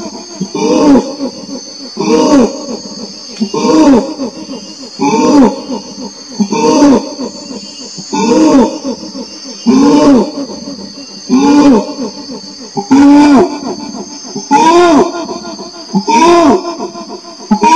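Orangutan calling: a regular series of short hooting calls, about one every second and a half, each rising then falling in pitch. A steady high hiss runs underneath.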